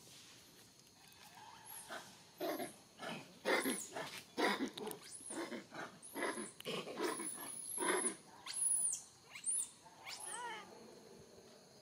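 Macaques calling in a rapid series of loud harsh screams, some rising into shrill high squeals. The calls start about two seconds in and stop about ten seconds in.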